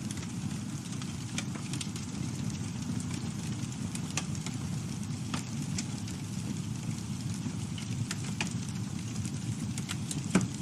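Campfire burning: a steady low rumble of flames with scattered sharp crackles and pops from the burning wood, the loudest pop near the end.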